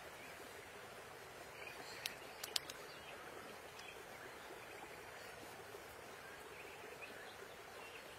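Faint outdoor forest ambience: a steady background hiss with a few sharp clicks about two seconds in.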